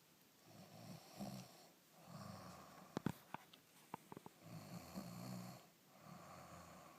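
Slow, regular snoring: a run of drawn-out snores, one every second or so, with a quick run of sharp clicks about halfway through.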